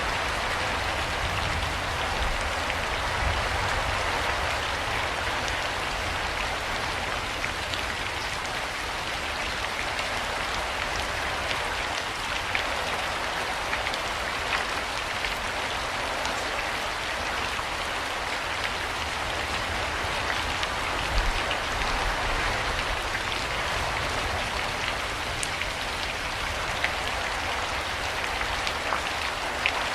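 Steady rain falling, an even hiss with scattered individual drops ticking on surfaces, over a faint low rumble.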